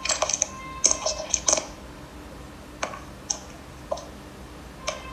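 Handling noise of a touchscreen device: a quick cluster of taps and knocks in the first second and a half, then single clicks spaced about a second apart.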